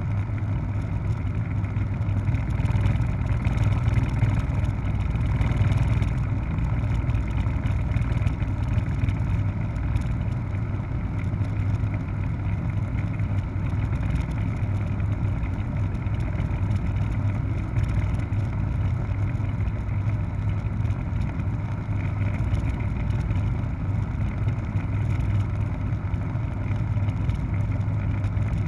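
Helicopter in flight: a steady low drone of rotor and engine that holds level throughout.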